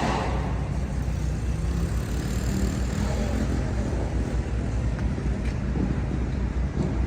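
Motor vehicle engine rumbling steadily in street traffic. A louder passing vehicle fades out at the start.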